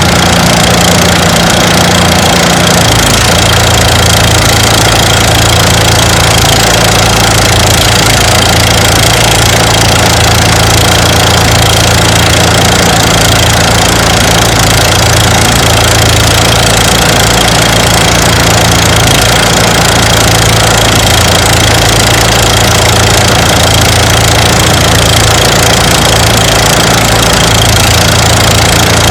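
Engine-driven rice threshing machine running loud and steady, with a constant high whine over the engine's drone; the low drone shifts to a lower pitch about three seconds in.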